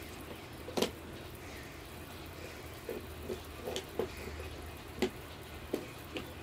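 Quiet eating sounds: a spoon and fingers tapping and scraping against a clay bowl and a stone mortar, with one sharp click about a second in and a few lighter taps later, over a faint low hum.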